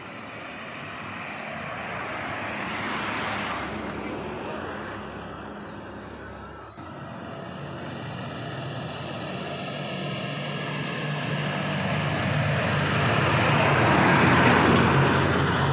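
Road traffic passing on a highway: one vehicle swells and fades about three seconds in, then after a sudden drop another, with a low engine drone, builds to a loud peak near the end.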